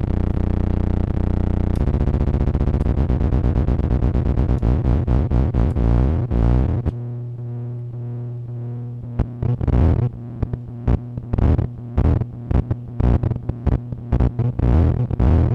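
Optical feedback tone from a Tektronix 2225 oscilloscope's CRT light read by a Lite2Sound BC photodiode amplifier: a buzzing electronic drone with many stacked overtones. It shifts its pitch pattern about two seconds in, narrows to a steadier hum around seven seconds, then breaks into irregular stuttering pulses as the scope's knobs are turned.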